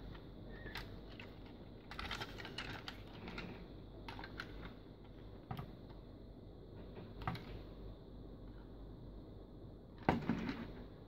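Hard plastic clicking and rattling of a bootleg Transformers Cybertron Optimus Prime toy as its parts are handled and folded, scattered clicks with a quick run about two seconds in and another near the end.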